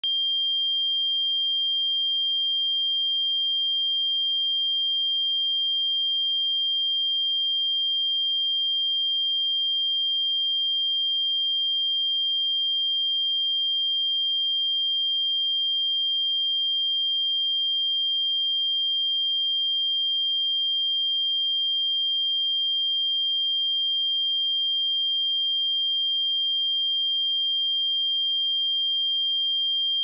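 A pure sine-wave test tone at 3193 Hz, one steady high-pitched note held at constant loudness without change.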